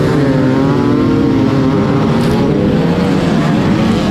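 Several off-road motorcycle engines running and revving together, their pitches overlapping and wavering up and down.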